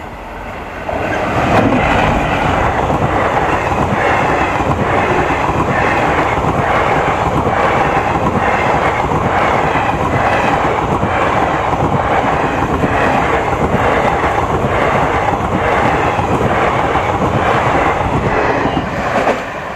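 Teesta Torsa Express passing at speed: loud, continuous rumble and clatter of the coaches' wheels on the rails, with a steady rhythmic beat, building about a second in and falling away sharply near the end.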